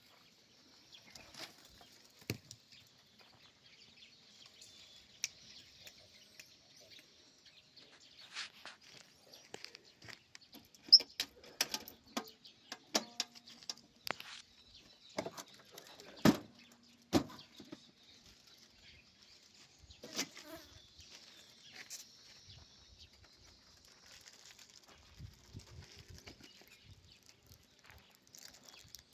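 Steady high-pitched insect chirring, with scattered sharp clicks and knocks over it; the loudest knocks come about eleven seconds in and again around sixteen to seventeen seconds.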